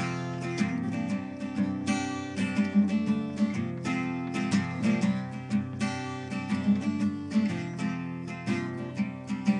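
Acoustic guitar strummed in a steady run of chords, with no singing.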